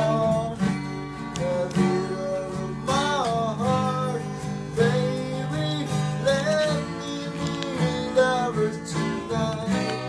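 Acoustic guitar strumming chords in an instrumental break of an unplugged pop-song cover, with a sliding melody line over them.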